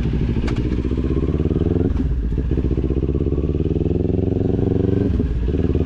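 Kawasaki Ninja 400 parallel-twin engine running as the bike rides off at low speed, a steady engine note with two brief breaks, about two seconds in and near the end.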